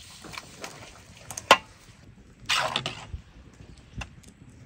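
Sliced pears tipped from a metal colander into a metal basin: a sharp metallic knock, then a short rush as the wet pieces slide in, and a smaller knock near the end.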